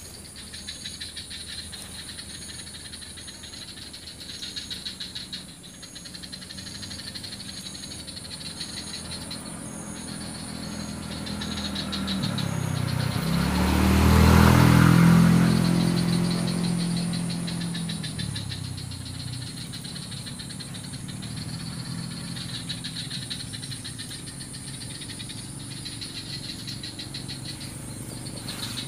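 A motor vehicle passes by: its engine builds up, is loudest about halfway through, and fades away a few seconds later. Under it runs a steady, fast-pulsing buzz of swamp insects.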